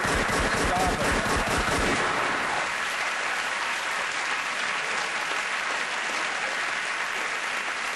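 Studio audience applauding, with a short whoop about a second in. The clapping is heavy and dense for the first two seconds, then settles into lighter, steady applause.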